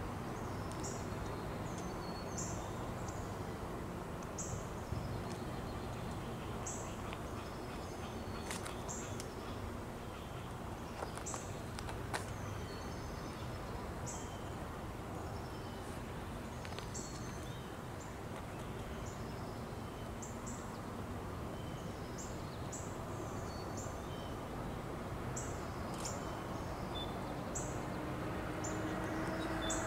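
Songbirds chirping over steady outdoor background noise, their short high notes repeating every second or so. In the last second or two a low steady tone begins and grows louder.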